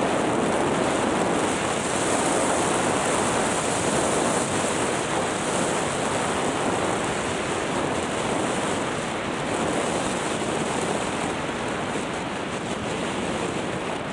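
Skis gliding over groomed snow with a steady rushing hiss, mixed with wind rushing over the microphone; the noise eases slightly in the second half.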